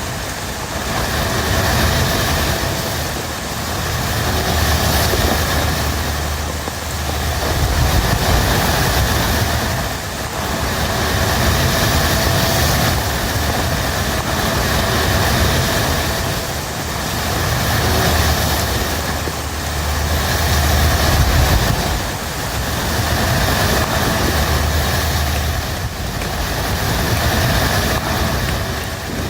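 Strong wind gusting in a storm: a loud, continuous rushing with a deep rumble that swells and eases every two to three seconds.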